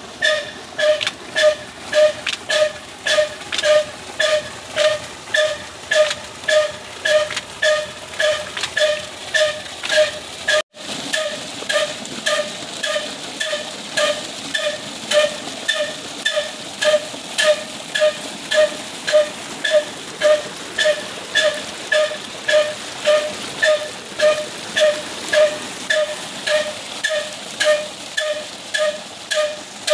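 Old black Insaf Daska single-cylinder diesel engine running a tube well pump at slow speed: a steady exhaust beat of nearly two ringing puffs a second. Water gushes from the delivery pipe into the tank, plainer after a brief cut about ten seconds in.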